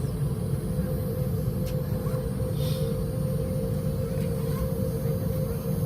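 Steady cabin noise inside a Boeing 717 airliner: a low rumble with a constant drone, and a few faint clicks.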